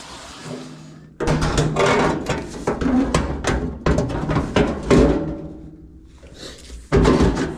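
A vacuum's steady hiss dies away in the first second. Then comes a run of irregular knocks and clatter, with a second short burst near the end, as parts and tools are handled during the dryer clean-out.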